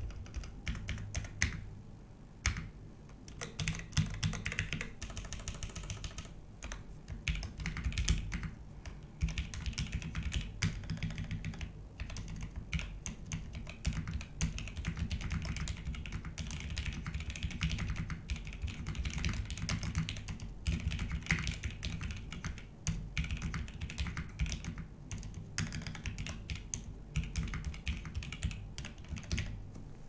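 Typing on a TGR Jane 2 CE mechanical keyboard with lubed Cream linear switches on UHMWPE stems, an FR4 half plate and BSP keycaps: a fast, continuous run of keystrokes broken by a few short pauses.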